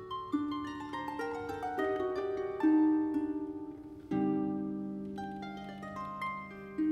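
Solo concert pedal harp playing: a run of plucked notes, then a full chord a little past halfway whose low notes ring on.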